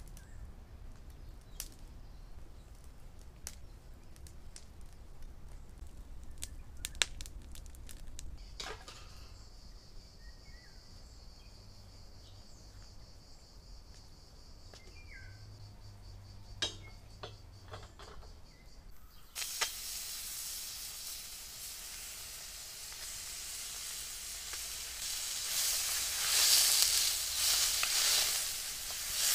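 A few sharp clicks of metal skewers against a steel bowl as raw chicken wings are threaded on. About two-thirds in, the sound changes suddenly to the loud sizzling of meat frying in a hot wok over a wood fire, stirred with a wooden spatula, growing louder near the end.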